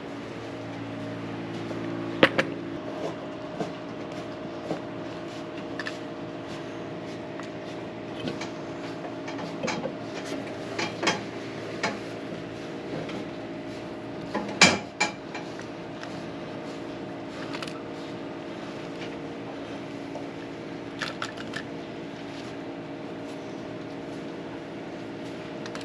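Steady low mechanical hum with scattered metallic clinks and knocks from a wrench turning a threaded pipe fitting on a water bowl, the loudest a couple of seconds in and about halfway.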